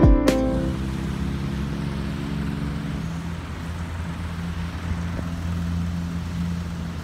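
Steady road traffic noise of passing and idling cars, an even hum of engines and tyres, as the last plucked guitar notes fade out at the start.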